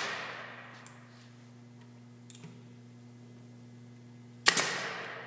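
Bostitch pneumatic nailer firing once, a sharp crack with a short hissing decay, as it drives a finishing nail into pine corner trim. The fading tail of the previous shot is heard at the start, with a few faint clicks in between as the nailer is moved along the trim.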